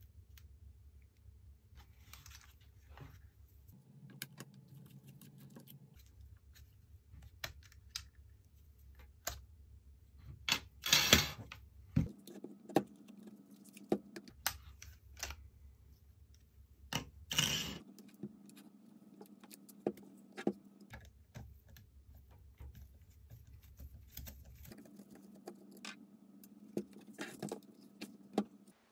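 Scattered light clicks and taps of a precision screwdriver and gloved hands handling the plastic body of a Nikon D90 DSLR as it is taken apart, with two louder brief rattling clatters, one about a third of the way in and one just past halfway.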